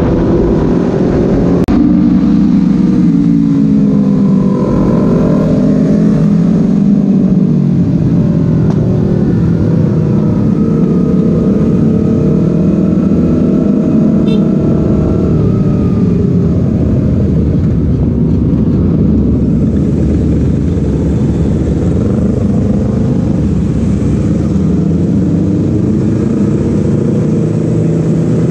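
Motorcycle engine running steadily while under way, its pitch shifting in the first few seconds as it changes speed, with constant wind and road noise.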